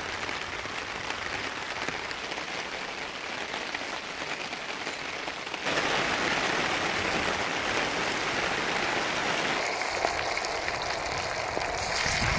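Steady rain falling, heavier and louder from about halfway through.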